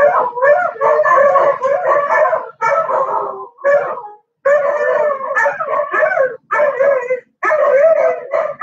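A dog howling and whining in a long run of short, wavering calls that rise and fall in pitch, broken by brief pauses.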